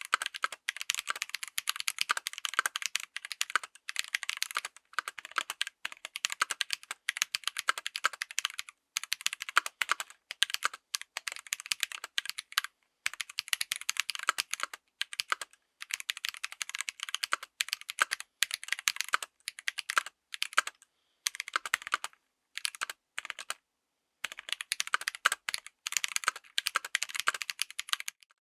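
Fast typing on a mechanical keyboard fitted with stock Drop + Invyr Holy Panda tactile switches: rapid clacking keystrokes in runs of several seconds, broken by short pauses.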